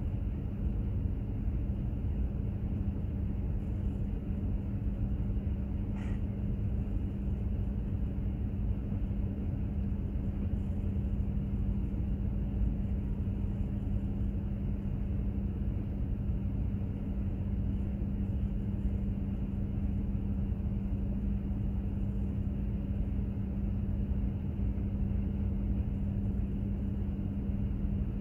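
Steady low rumble and a constant hum from a container ship under way: its engine and machinery droning without change.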